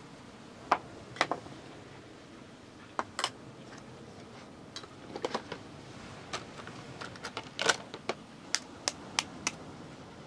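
Small hard objects being handled and set down: about fifteen irregular sharp clicks and taps, some in quick pairs, over a faint steady background.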